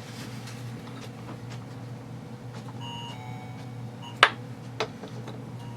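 Airsoft gearbox parts being handled, giving a sharp click about four seconds in and a lighter one half a second later, over a steady low hum.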